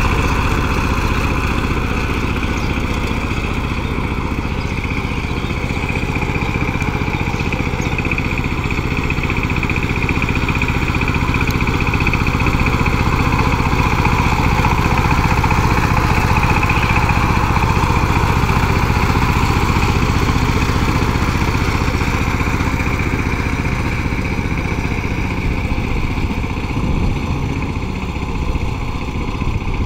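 Single-cylinder diesel engine of a two-wheel power tiller running steadily under load as its cage wheels churn through a flooded rice paddy. It grows slightly fainter near the end as the tiller moves away.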